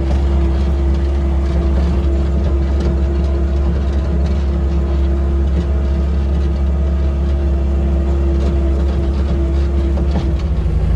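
Farm machinery's diesel engine running steadily at constant speed, a heavy low drone with a steady hum over it; the engine note shifts slightly near the end.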